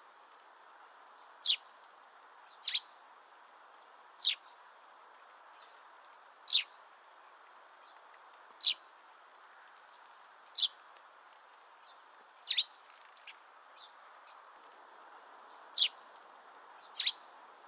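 Great spotted woodpecker giving short, sharp single call notes about every one to two seconds, a few of them doubled.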